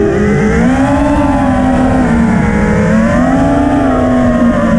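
FPV racing quadcopter's brushless motors and propellers whining in flight, heard from the drone's own camera. The pitch swells and eases twice as the throttle is worked, over a low rumble of wind.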